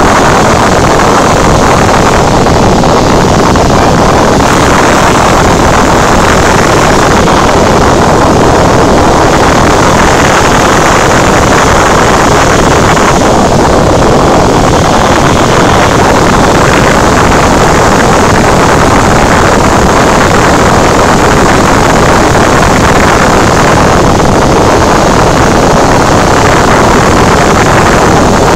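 Cabin noise of a Cessna 172 in flight: the piston engine and propeller running steadily, with rushing airflow. Very loud, with no change in pitch or rhythm.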